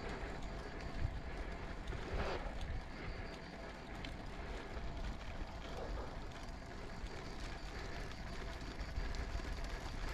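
Wind rushing over the microphone with steady road rumble from a road bike being ridden.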